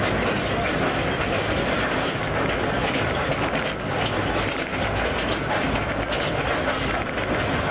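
Underground mine train carrying passengers through a coal-mine tunnel, its cars rattling and rumbling steadily as it runs.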